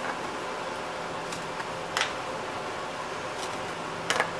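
Wire cutters crimping and snipping around the rim of an empty aluminum aerosol can to free its steel top: a few sharp snips, the loudest about two seconds in and a quick double snip near the end. A steady low hum runs underneath.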